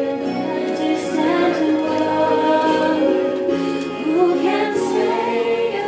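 A mixed group of young voices, mostly female, singing a slow ballad together with long held notes.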